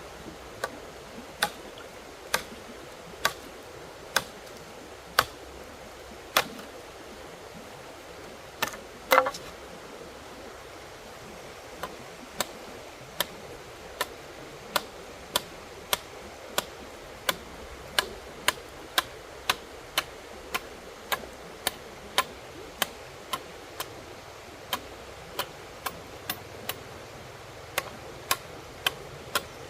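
A long run of sharp knocks over a steady hiss. They come about one a second at first, then after a short pause and a loud double knock with a brief ring about nine seconds in, they pick up to nearly two a second.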